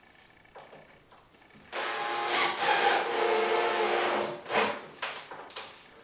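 Cordless drill running steadily for about two and a half seconds, then a brief second burst, driving a screw into the door latch faceplate.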